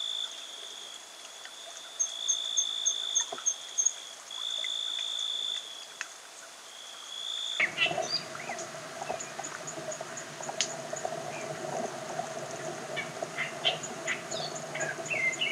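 Wild outdoor ambience. For the first seven and a half seconds an insect gives a high, steady buzz in several long stretches. At about eight seconds the sound changes abruptly to scattered bird chirps and short calls over a low, steady hum.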